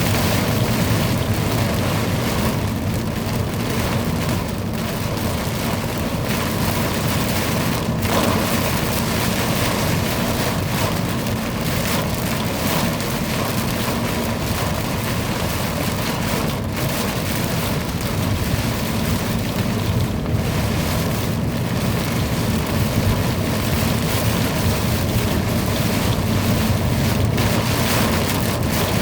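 Heavy thunderstorm downpour: a steady, dense rain hiss with a low rumble underneath.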